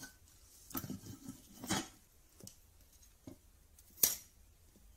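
Thin metal strip being handled, with a few light rustles and taps, then about four seconds in a single sharp snap as a cheap DIY spot welder's probes fire a weld pulse into the 0.3 mm strip.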